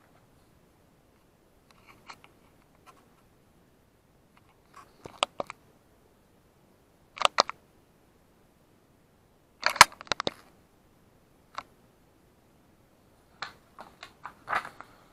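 Hands handling a steelbook Blu-ray case: scattered clicks, taps and light rustles, with the loudest cluster about ten seconds in and a run of quicker clicks near the end.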